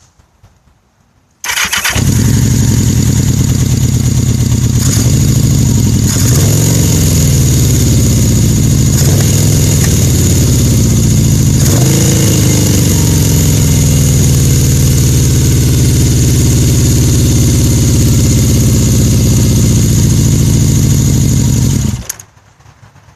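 1981 Yamaha XS1100 Special's air-cooled inline-four engine comes in suddenly about a second and a half in and runs at an uneven idle. Its pitch rises and falls twice in the first half, then it holds steadier, and it stops near the end. The idle is rough and erratic, caused by a loose throttle shaft rivet on the number 4 carburetor.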